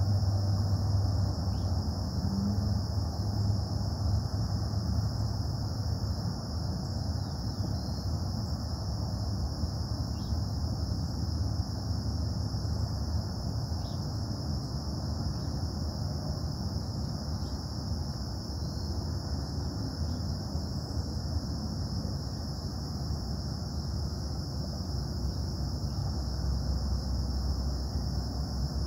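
Steady low hum and rumble of distant industrial plant noise carrying over the trees, under a constant high drone of crickets and a few faint bird chirps.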